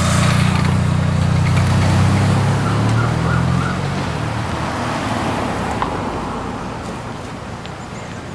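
A motor vehicle's engine running close by, a low steady rumble that grows fainter over the second half.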